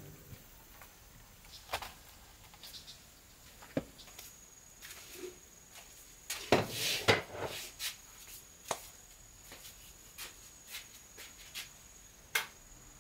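Scattered knocks, taps and footsteps as household things are handled and set down, the loudest a cluster of clattering knocks about halfway through. A thin, steady high insect buzz starts about four seconds in.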